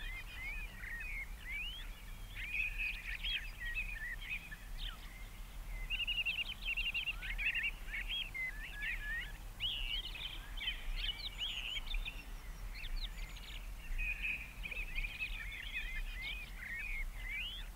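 Small birds chirping and singing almost without pause, many short quick notes that rise and fall, with a faint steady low hum beneath.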